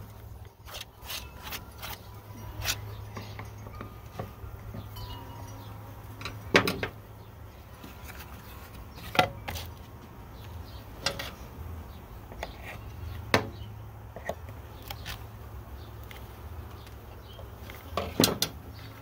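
Scattered sharp metal-on-wood clicks and knocks as staples are pried out of a wooden bee package box and its metal feeder can is worked loose. They come irregularly every couple of seconds, with a quick cluster near the end as the can is pulled, over a steady low hum.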